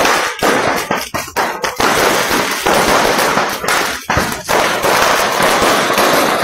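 A burning stock of fireworks and firecrackers going off: a quick run of separate sharp bangs, then from about two seconds in a dense, unbroken crackle of many small reports.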